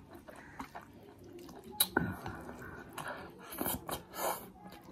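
Close-miked mouth sounds of eating spicy instant noodles: chewing, a sharp click a little before two seconds in, then noodles slurped into the mouth in two short bursts near the end.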